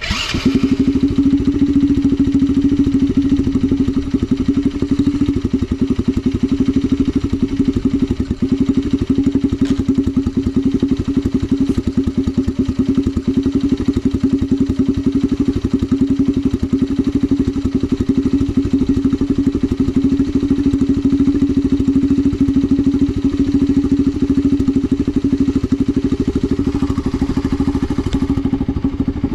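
Bored-up Honda Magna 50 (AC13) small single-cylinder four-stroke engine catching on a cold start and then idling steadily and evenly, with no abnormal noises.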